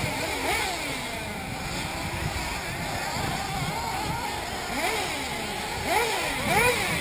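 1/8-scale nitro RC buggies running on the track, their small two-stroke glow engines revving up and down in high-pitched rising and falling whines, with several sharp revs in the last two seconds.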